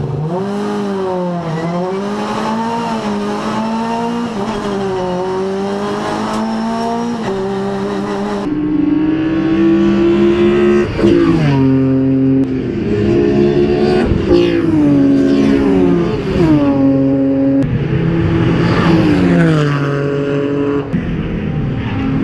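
Race car engine heard from inside the car, its revs rising and falling. About eight seconds in it gives way to race cars passing one after another along the pit straight, each engine note dropping in pitch as it goes by.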